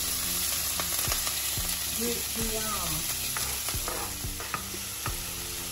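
Chopped vegetables sizzling steadily as they fry in hot oil in a pan, with scattered sharp knocks and scrapes of a wooden spatula against the pan and chopping board as they are pushed in and stirred.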